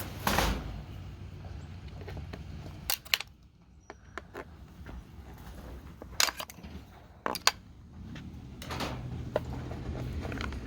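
Scattered sharp clicks and knocks of hand tools and plastic parts being handled as a chainsaw's top cover is taken off. A low steady hum runs underneath.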